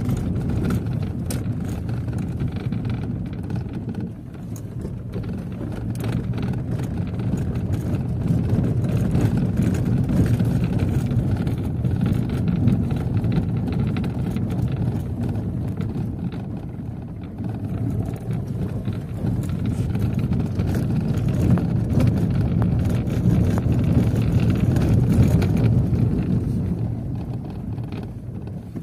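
Car driving over an unpaved street, heard from inside the cabin: a steady low engine and tyre rumble that swells and eases with speed, with scattered light clicks and knocks.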